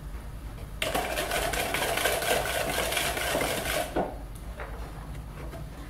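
Wire whisk beating a thin egg, oil and sugar batter in a mixing bowl: a rapid rattle of the wires against the bowl for about three seconds, starting about a second in. It stops with a couple of light knocks.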